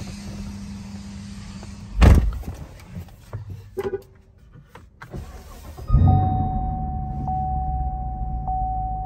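Chevrolet Camaro SS's 6.2-litre V8 cranking and catching about six seconds in, then running at a steady rumbling idle. Before it, a loud short thump comes about two seconds in, followed by a few clicks.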